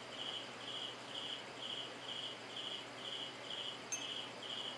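A cricket chirping at a steady rhythm, about two short chirps a second at one high pitch. A single sharp click comes near the end.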